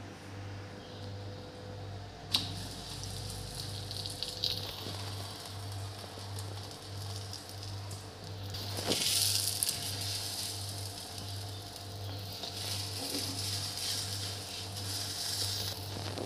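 Stuffed potato-spinach paratha sizzling on an oiled iron tawa. The sizzle grows louder about nine seconds in, and a couple of sharp knocks come as it is laid down and handled.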